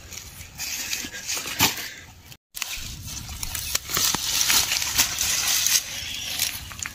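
Radish leaves and stalks rustling and crackling close up as radishes are pulled from the soil by hand, with scattered sharp snaps and clicks. The sound cuts out briefly about two and a half seconds in.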